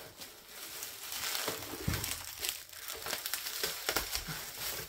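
Plastic bubble wrap crinkling and crackling as hands pull a wrapped bundle out of a cardboard box and handle it, with a couple of soft thumps about two and four seconds in.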